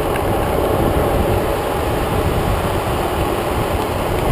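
Longboard wheels rolling fast on asphalt, a steady rumble, mixed with wind rushing over the camera microphone at downhill speed.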